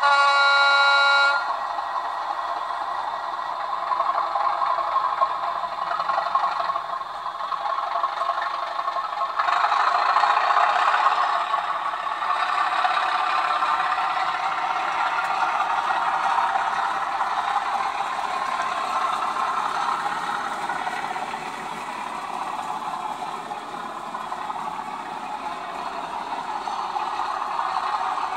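A model diesel locomotive's horn sounds for about a second and a half at the start. Then the model train runs along the track with a steady running noise that grows louder around ten seconds in and slowly eases off.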